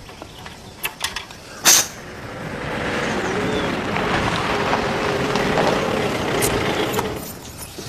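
A couple of sharp metallic clanks, then an engine running for about four and a half seconds before it fades out.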